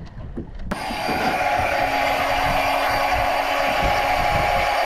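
Electric deep-drop fishing reel motor whining steadily as it winds the line in, starting abruptly about a second in.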